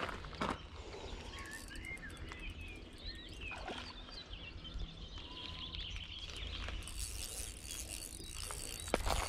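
Small songbirds chirping and twittering in short quick calls throughout, over a steady low rumble, with a few sharp clicks and a rustle near the end.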